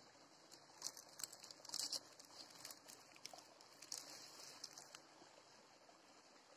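Crackling and rustling of a charred, dried leaf wrapping as it is handled and broken open by hand: a run of small sharp crackles that stops about three-quarters of the way through.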